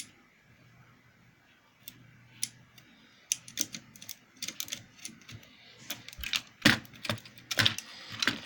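Quick, irregular sharp clicks and clatter, like keys being typed. They start sparsely about three seconds in and grow denser and louder near the end.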